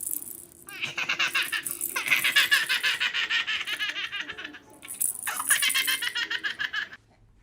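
Baby laughing in two long runs of rapid, repeated giggles, with a short break in the middle.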